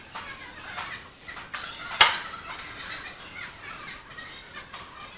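A single sharp metallic clank of gym equipment about two seconds in, the loudest thing heard, over faint scattered chirps and rustling.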